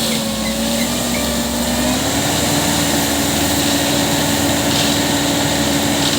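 Engine of a construction machine running steadily, its pitch stepping up slightly about two seconds in as the engine speeds up.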